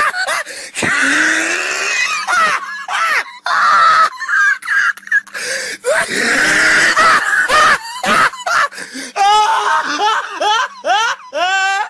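A man laughing hard in long, high-pitched fits, with breathy stretches between rising squeals.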